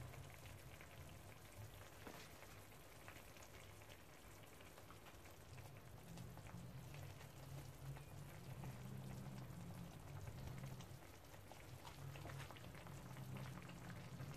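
Tomato sauce simmering in a pan, faint and crackly with tiny pops and spatters of bubbles, over a low hum that swells and fades.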